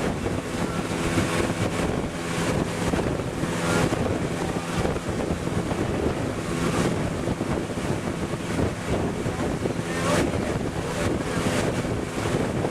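Motorboat engine running steadily while the boat is underway, with wind buffeting the microphone in gusts over it.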